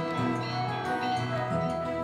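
A set of bells ringing: low bells struck again and again under long, overlapping ringing tones from the higher bells.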